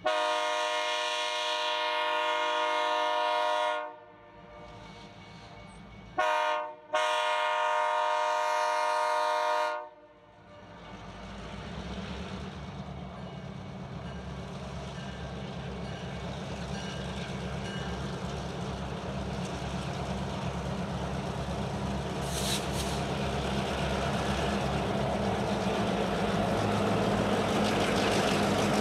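Air horn of an EMD GP38-2 diesel locomotive sounding for a grade crossing: a long blast, a brief one and a final long blast that ends about ten seconds in. Then the rumble of the two GP38-2s' diesel engines and the rolling train grows steadily louder as they draw close and pass.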